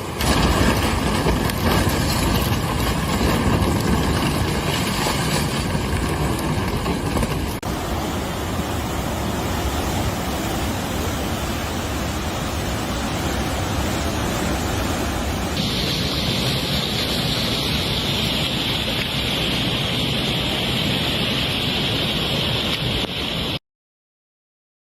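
Floodwater rushing, a loud steady noise, in three clips that change abruptly about 7 and 15 seconds in; it cuts off to silence shortly before the end.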